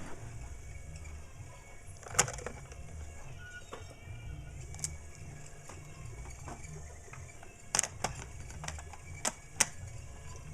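Sharp clicks and knocks of an O gauge toy diesel locomotive and its cars being handled and set onto three-rail track, over a low rumble.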